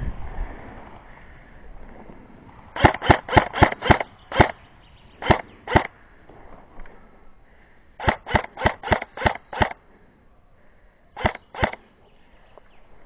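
Airsoft guns firing in short strings of quick shots, two to six at a time at about three a second, with pauses between the strings.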